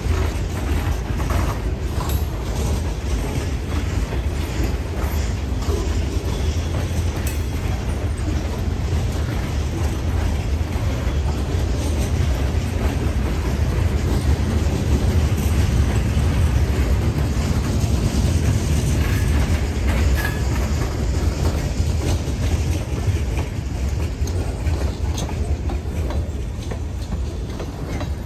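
Freight train of open-top and covered hopper cars rolling past close by: a steady heavy rumble of steel wheels on rail, with scattered wheel clicks.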